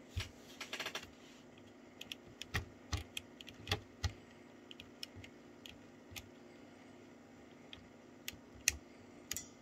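Irregular light clicks and taps from handling the metal cassette mechanism of a Unitra ZRK MK 121 cassette recorder, with a quick rattle of clicks just after the start.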